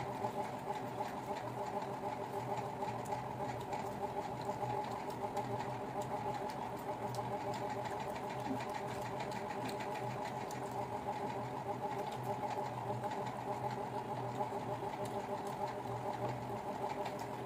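A small motor running steadily, a constant hum with a fast, even rattle.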